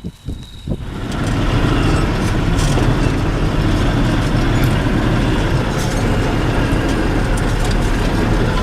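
T-150K wheeled tractor's diesel engine running loud and steady under way. It comes in about a second in, after a few light knocks.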